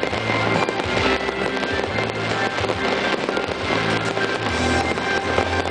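Fireworks display: many aerial shells bursting and crackling at once in a dense, continuous barrage, with music playing underneath.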